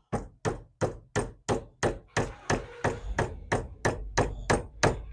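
Rubber mallet striking repeatedly at a steady pace of about three blows a second, driving the dowel pin out of a vent window handle clamped in a vise.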